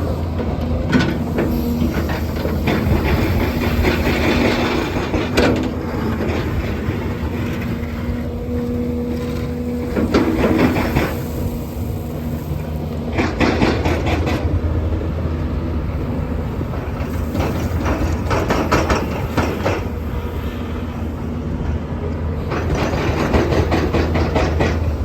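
Doosan excavator's diesel engine running steadily, with a whine that comes and goes, as it loads asphalt millings; the millings clatter and rattle in repeated spells as the bucket scoops and dumps.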